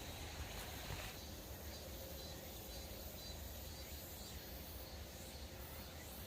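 Faint outdoor ambience: a steady low rumble with a faint, steady high insect trill.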